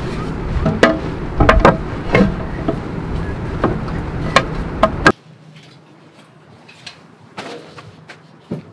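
Sharp metallic clicks and knocks as a black metal-rod table frame is fitted together with wooden planks, over a steady low rumble. About five seconds in the rumble cuts off suddenly, leaving a few soft knocks as a mesh-top camp table is set down.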